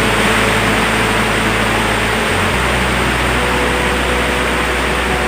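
Steady loud hiss with a low hum underneath, which briefly changes about two seconds in.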